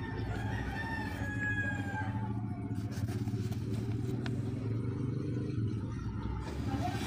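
Rooster crowing, one drawn-out crow that ends about two seconds in, over a steady low hum.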